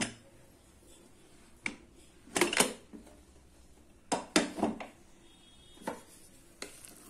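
Aluminium pressure cooker being opened: a string of short metal clinks and knocks, the loudest a little over two seconds in and again just after four seconds.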